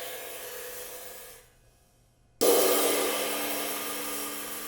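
A cymbal struck with a drumstick: the ring of one accent fades and stops short about a second and a half in. After a brief silence a second stroke rings out and fades slowly.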